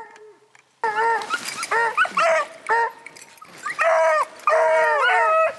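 Hounds baying on the track of a hare in snowy woods, giving repeated short, rising-and-falling cries that start suddenly about a second in, with two voices overlapping near the end.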